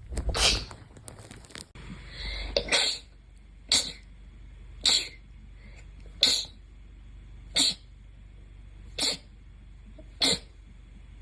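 A fit of sneezes: eight short, sharp sneezes in a row, roughly one every second and a half, with a brief rising breath just before the second one.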